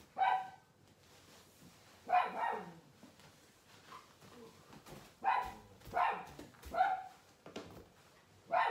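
A dog barking in short single barks at irregular intervals, with a quick run of three about five to seven seconds in.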